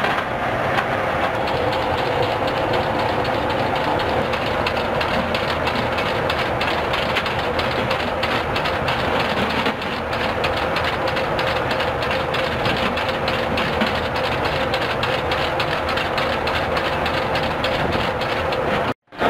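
Belt of linked 20 mm rounds rattling and clicking as it is fed into a Phalanx CIWS ammunition loader, over a steady machinery drone with a held hum. The sound cuts out briefly near the end.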